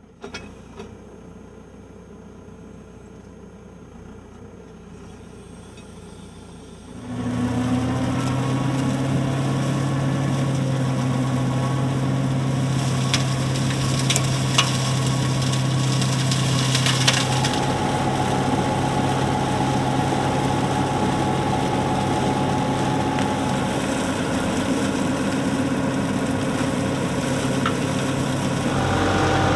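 Tractor engine running with a Berti TA/M flail verge mower working: fainter at first, then much louder about seven seconds in, where it holds a steady hum. A few sharp clicks stand out in the middle.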